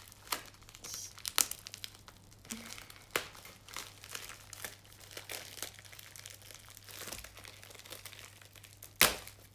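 The protective plastic film on a diamond-painting canvas crinkling and crackling as the canvas is handled, in irregular crackles with one sharper crack near the end.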